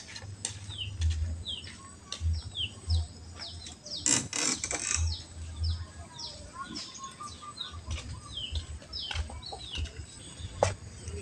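A bird chirping over and over, each chirp short and falling in pitch, over a faint steady high insect drone, with scattered clicks and a brief cluster of them about four seconds in.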